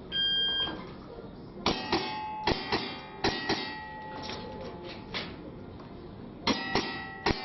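A shot-timer buzzer sounds briefly, then a string of revolver shots fired in quick pairs, with a metallic ringing after them. Six shots come close together, then a pause for the reload, and another rapid run of shots near the end.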